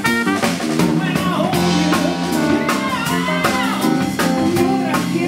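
Jazz band playing a swing-style number: a trumpet line over guitar, bass and drum kit, with a steady beat.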